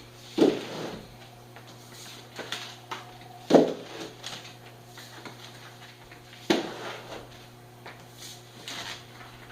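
Heavy shrink-wrapped packs of beer set down one by one onto a stack, three dull thuds about three seconds apart, with fainter knocks and handling sounds between them.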